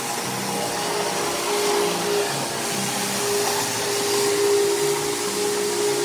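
Vacuum cleaner running steadily: a constant whir with a steady whine over it.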